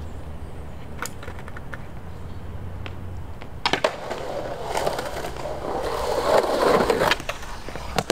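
Skateboard on rough concrete: a few sharp clacks of the board, then its wheels rolling for about three seconds, growing louder before stopping suddenly, with more clacks near the end.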